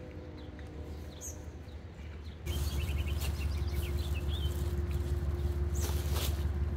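Birds chirping, with a quick run of short chirps about two and a half seconds in, over a low steady rumble and hum that gets suddenly louder at that moment. Brief rustling is heard near the end.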